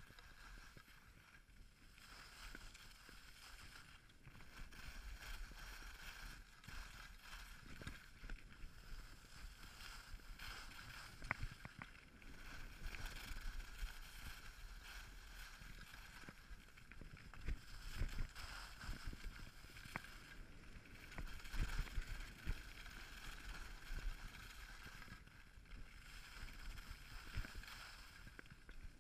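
Skis sliding and scraping over packed snow on a groomed piste: a steady hiss that swells and fades with the turns, with occasional short knocks.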